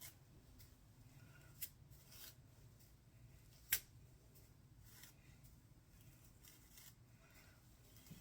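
Faint rustling and light clicks from hair being parted and combed, with one sharper click a little under four seconds in, over a low room hum. The hair dryer is not running.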